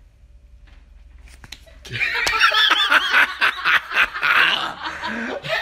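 Faint for about two seconds, then loud, high-pitched giggling and laughter that wavers up and down.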